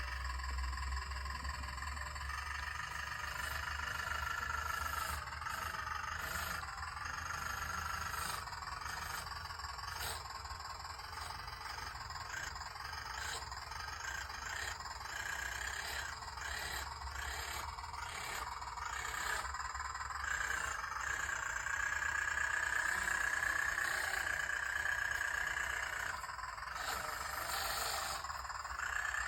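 Small electric motors of a radio-controlled excavator whining as it works, with their pitch wavering and growing stronger in the second half, over a low hum and frequent short clicks and scrapes.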